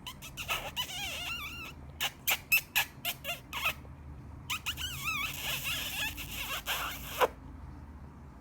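A person making squeaky kissing noises with the lips: a wavering high squeak for a second and a half, then a run of about six quick lip smacks, then a longer wavering squeak that ends in a sharp smack.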